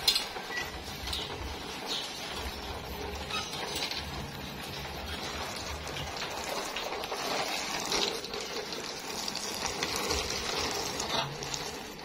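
Water spraying from a hose onto a macaw's feathers and splashing, a steady hiss with scattered small taps of drops.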